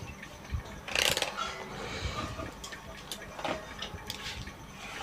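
Clicks and short rattles of a handheld digital multimeter and its test leads being picked up and handled, with a louder scraping rustle about a second in.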